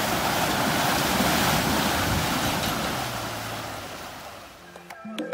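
Mitsubishi Triton ute in four-wheel drive pushing through a muddy rut: a loud rush of tyres churning mud and water, with the engine running under it, fading out about four seconds in. Music with plucked, percussive notes starts near the end.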